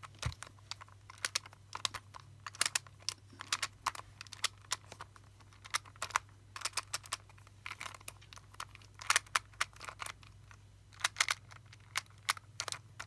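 Rubik's Clock puzzle being scrambled by hand: irregular sharp plastic clicks from dials being turned and pins being pushed, over a faint steady low hum.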